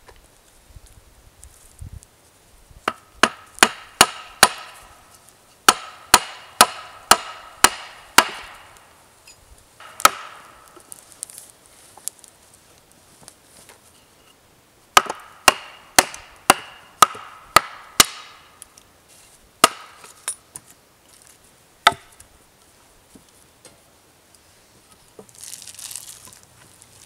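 Hatchet chopping into a wooden pole: runs of quick strokes, about three a second, with a few single blows between, each strike giving a short ringing note.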